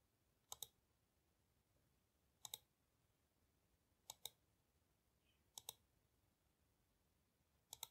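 Computer mouse button clicking: five pairs of quick, sharp clicks about every one and a half to two seconds, made while drawing wires in a schematic editor. Otherwise near silence.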